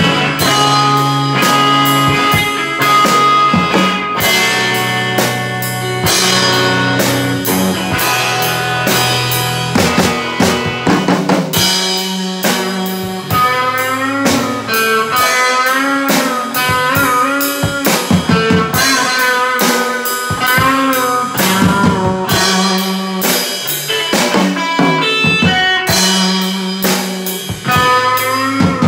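An electric guitar and a drum kit jamming together in a bluesy style. The guitar plays held notes, with bent, wavering notes for several seconds in the middle, over steady drumming with cymbal hits.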